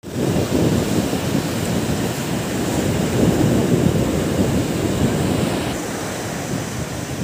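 Waves breaking and washing up a sandy beach, with wind rumbling on the microphone; the higher hiss thins a little near the end.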